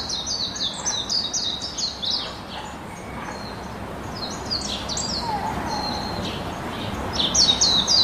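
Pet budgerigars chirping in quick runs of short, high chirps: a run in the first two seconds, another around five seconds, and a louder one near the end.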